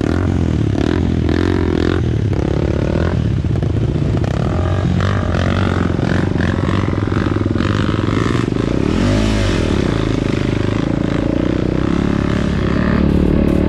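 Dirt bike engine running and revving up and down on a trail, the pitch rising and falling again about nine seconds in.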